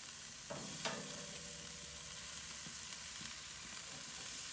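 Swordfish, shrimp, pineapple and sweet potato sizzling steadily on a hot gas grill. A metal spatula briefly scrapes and clinks against the grill about a second in, as the sweet potato wedges are turned.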